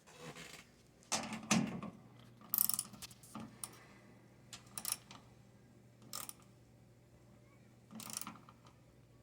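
Irregular metal clicks and short scrapes of a wrench working on the bolts of a Craftsman tool box handle as the hardware is tightened.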